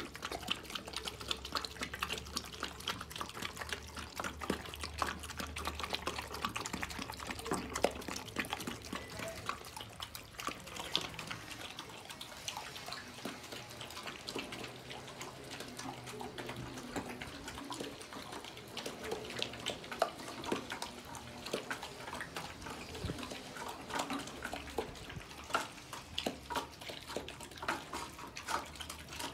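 Two pit bull puppies eating wet, milky food from steel bowls: a continuous run of quick wet lapping, slurping and smacking sounds.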